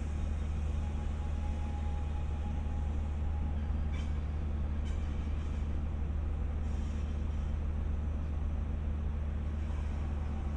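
Indian Pacific train's diesel engine idling while standing at the station: a steady low drone. Two faint clicks come about four and five seconds in.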